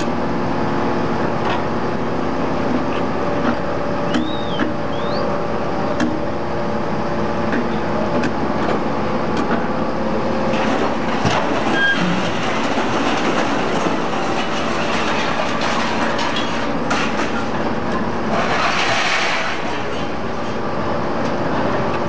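Hydraulic scrap metal baler and excavator running: a steady machine hum with scattered clanks, a brief squeal about four seconds in, and a short hiss near the end.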